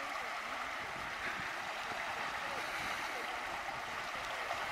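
Steady outdoor ambience at the water's edge: an even hiss like gently moving water, with no distinct event standing out.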